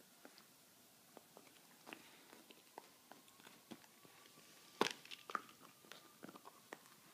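A dog gnawing on a hard chew: irregular small crunches and clicks of teeth on the chew, the loudest a sharp crunch about five seconds in.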